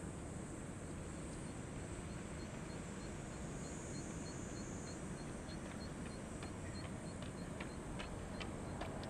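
Faint, steady low rumble of the distant Embraer E175's jet engines on its takeoff roll, under a high hiss and a short high chirp repeating about four times a second. Sharp clicks come in over the last few seconds.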